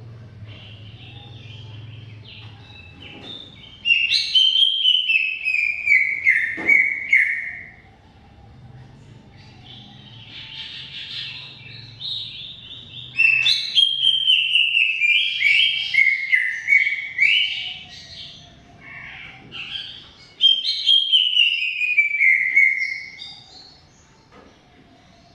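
Cucak ijo, a green leafbird, singing in three loud phrases, each a rapid run of notes stepping down from high to lower pitch, with softer chirps and a faint low hum between them.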